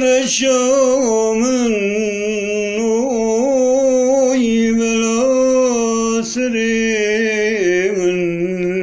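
A man singing a long, held, ornamented vocal line solo, his voice wavering and turning in pitch without a break.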